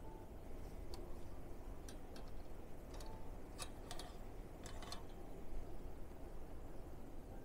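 A scattering of light clicks and taps from small objects being handled and set down, clustered in the first few seconds, over a low steady hum.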